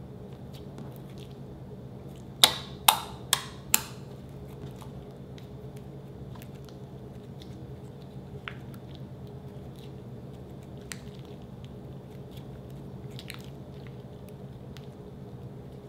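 Slime being stretched, folded and kneaded by hand: soft wet squishing with scattered small clicks, and a quick run of four loud sharp pops about two and a half seconds in.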